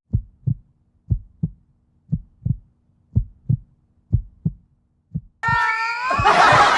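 Heartbeat sound effect: a low double thump about once a second, repeated six times. Near the end a loud burst of noise with a few falling tones cuts in over it.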